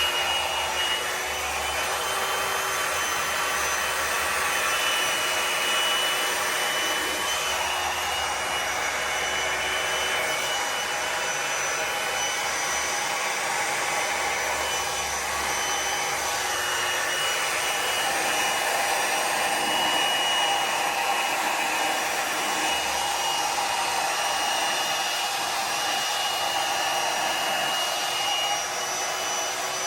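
Hair dryer running steadily, blowing out wet acrylic pour paint on a canvas: an even rush of air with a steady motor whine.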